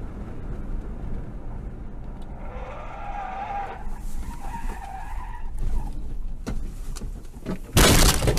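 Car tyres skidding and squealing for a few seconds under hard braking and swerving over steady road noise. This is followed by a few knocks and then a short, loud crash near the end as the car leaves the road into brush.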